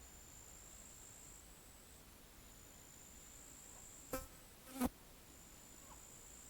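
A flying insect, a fly or bee, buzzing close by in two short loud passes about two thirds of the way in, over a faint steady high-pitched whine.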